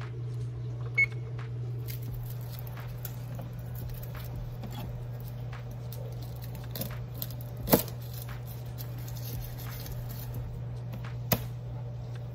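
An electric range's touch panel beeps once, about a second in, as Start is pressed. Then a chef's knife taps and cuts garlic cloves on a plastic cutting board, with two sharp knocks at about eight and eleven seconds as the cloves are popped, all over a steady low hum.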